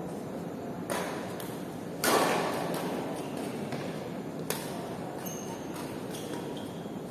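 Badminton rally: rackets striking the shuttlecock several times, with sharp hits about one, two and four and a half seconds in, the one at two seconds the loudest and ringing on in the large hall. Steady background noise runs underneath.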